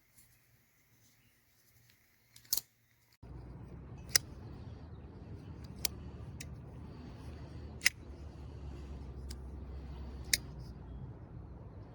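Sharp, short clicks of a folding pocket knife's blade being flicked open and snapped shut on its crossbar lock, five clicks a couple of seconds apart. A low steady hum comes in suddenly about three seconds in.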